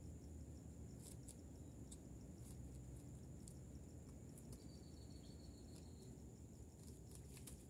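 Near silence: a faint, steady, high-pitched insect-like trill over a low hum, with a few faint scattered clicks.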